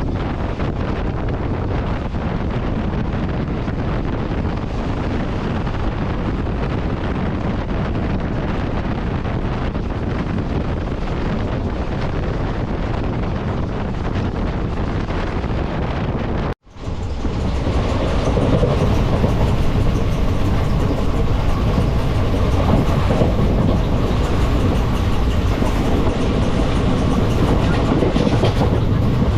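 West Coast Express passenger train running at speed, the steady rumble and rattle of the coaches on the rails. It cuts out briefly about halfway through, then comes back louder.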